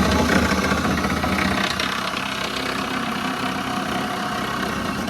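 An engine running steadily under a dense wash of noise.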